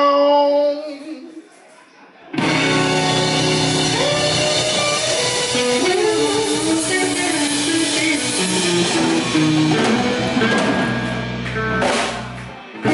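Live blues band (electric guitars, electric bass and drum kit) playing. A held note dies away, and after a short break about two seconds in the full band comes back in loud and plays on, dipping briefly near the end.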